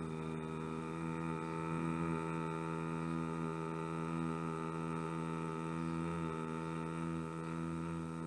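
A man's steady, single-pitched nasal hum held through one long exhale: bhramari, the humming bee breath of pranayama.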